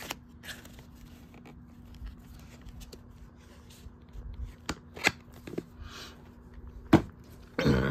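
Handling of VHS tapes and their packaging: scattered clicks and taps of plastic cassettes and cases, with a soft rustle about six seconds in.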